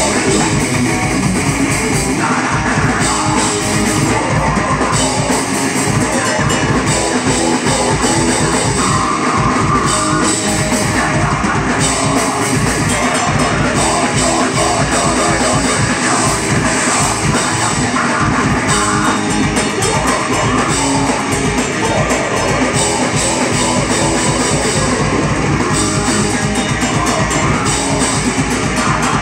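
Live grindcore played loud and unbroken on a distorted electric guitar and a Pearl drum kit, with rapid drumming, captured on a phone's microphone.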